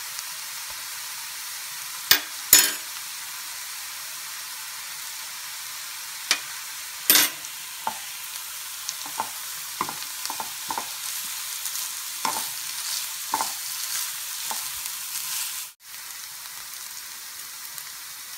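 Chopped onions sizzling in oil in a nonstick frying pan, a steady hiss, as they are sautéed with ginger-garlic paste. A plastic spatula and spoon knock and tap against the pan now and then, the loudest knock about seven seconds in. The sound cuts out for a moment near the end.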